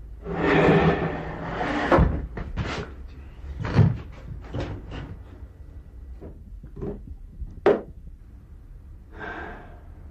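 Household handling noises: a rustle, then a string of separate knocks and clunks like a cupboard door and objects being set down, with another short rustle near the end.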